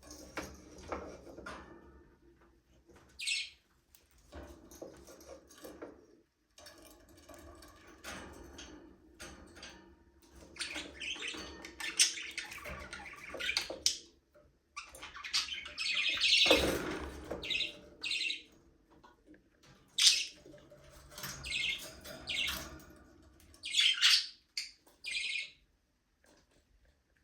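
Several budgerigars chirping and chattering, with sharp, louder calls now and then.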